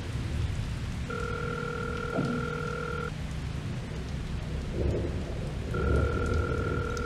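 Telephone ringback tone heard through a phone held to the ear: a steady two-pitched tone lasting about two seconds, sounding about a second in and again near the end, a call ringing unanswered. Under it, steady rain and low thunder.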